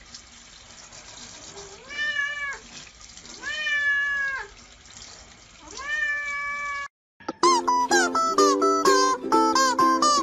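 A cat meowing three times, long drawn-out meows, over a steady hiss of running water. About seven seconds in, the sound cuts out and bright plucked-string music like a mandolin or ukulele starts.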